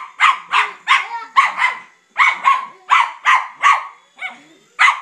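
Dog barking excitedly at a helicopter, sharp barks about three a second in runs, with a short break about two seconds in.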